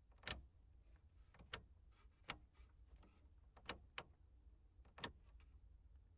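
Half a dozen sharp, single clicks of switches and knobs being worked on a control console, spaced irregularly over a low steady hum.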